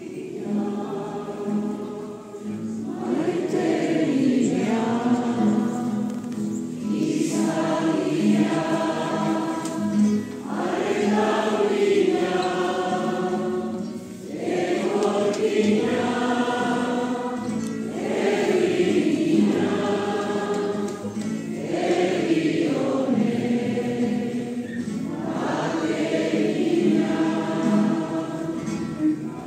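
A large congregation singing a hymn together in Basque, in phrases of about two seconds each.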